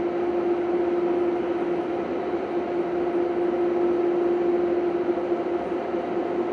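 Steady machinery hum in a large work hall, with one strong, even tone over a constant noisy drone that does not change.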